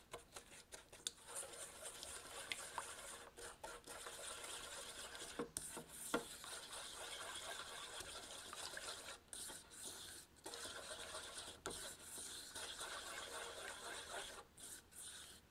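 Silicone spatula stirring strawberry puree and granulated sugar around a stainless steel mixing bowl: a continuous scraping and rubbing against the metal, broken by several short pauses.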